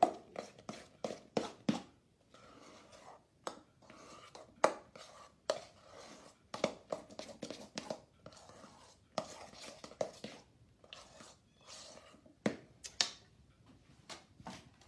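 Metal spoon scraping and clinking against a stainless steel mixing bowl in quick, irregular strokes, stirring a thick mix of whipped topping and lemon curd.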